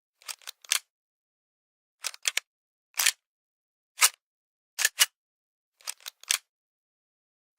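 A pistol being cocked again and again: short sharp mechanical clicks, some single and some in quick runs of two or three, about a second apart.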